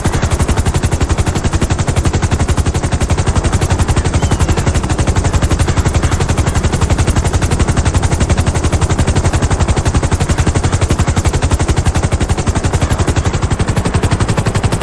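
Helicopter rotor chop: a loud, steady, rapid and even beating of the main rotor blades.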